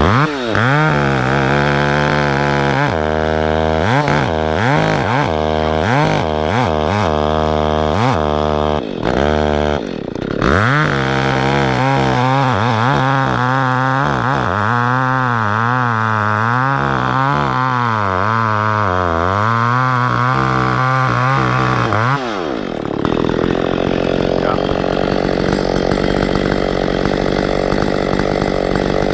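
Echo CS6700 two-stroke chainsaw cutting through maple log chunks, its engine speed rising and falling repeatedly as it works. For the last several seconds it runs steadier.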